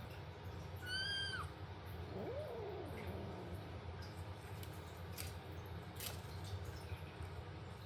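A kitten's short, high-pitched mew about a second in, then a fainter, lower meow rising and falling just after. A few faint ticks follow later.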